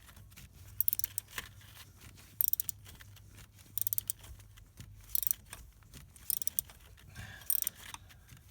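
Hand ratchet clicking in short bursts, about one burst every second and a half, as a stiff broken exhaust manifold bolt is worked out of a cylinder head in small strokes.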